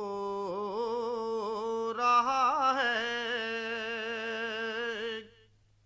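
Unaccompanied naat singing: a single voice holds one long wordless, ornamented note with vibrato, growing fuller about two seconds in, then stops after about five seconds.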